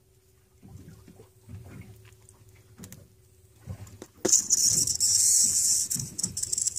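Air hissing out through a thick venting needle pushed into a grouper's swim bladder, relieving barotrauma from being brought up from depth. The hiss starts suddenly about four seconds in and holds steady, after a few faint knocks of handling.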